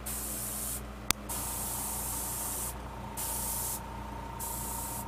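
Airbrush spraying paint in four short hissing bursts with brief pauses between, as light coats are laid onto a fishing lure. A sharp click comes about a second in.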